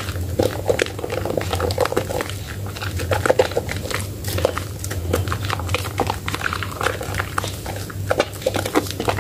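Hands squeezing and kneading thick lather and soaked Medicare White soap, making wet squelching and many small, irregular crackles and pops of foam.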